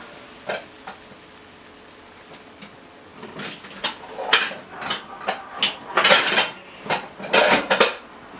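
Nylon spatula scraping and stirring minced chicken soboro in a nonstick frying pan. A light click comes about half a second in, then a run of scrapes and clatters fills the last five seconds.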